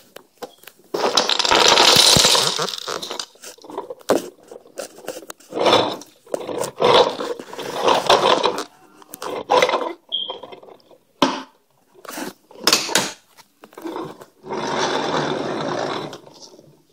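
A plastic toy garbage truck and cardboard blocks being pushed, dropped and scraped on a wooden floor, in irregular bursts of scraping and clattering with short gaps between them.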